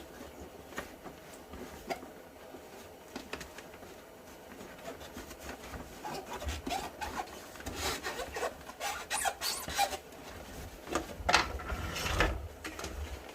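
Parts of a Ridgid shop vacuum being handled and fitted together: rubbing, scraping and scattered knocks. The sounds grow busier about halfway through, with the loudest knocks near the end.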